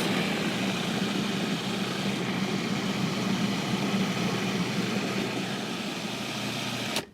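Electric blender running steadily with a motor hum, blending hummus, then switched off near the end.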